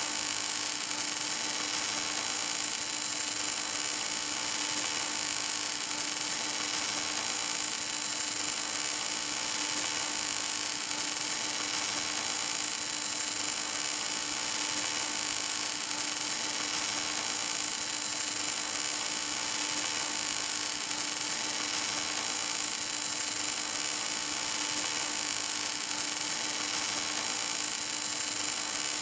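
Welding arc of an HK-11W automatic pipe-welding tractor running continuously along a steel pipe joint. It makes a steady hiss over a constant low hum, with no breaks or changes.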